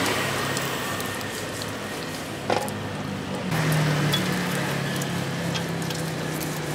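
Omelette frying in oil in a wok over a gas burner, a steady sizzle. A single sharp knock comes about two and a half seconds in, and a low steady hum joins about a second later.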